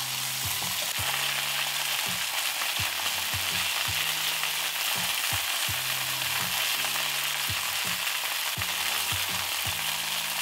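Flour-dredged beef shanks searing in hot vegetable oil in a stainless steel pan, giving a steady frying sizzle.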